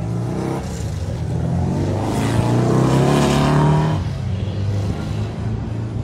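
A car engine accelerating, its pitch climbing for a few seconds and loudest just before it drops off about four seconds in, over a steady low rumble of other engines.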